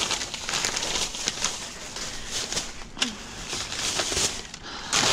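Plastic trash bags and crinkly snack wrappers rustling and crackling as a reach grabber pokes and pulls through them, with a few sharp clicks and crinkles among the rustle.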